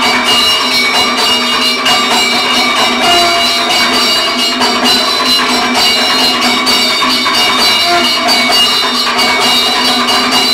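Kathakali stage music: metal cymbals struck in a quick, steady rhythm under sustained ringing, bell-like tones.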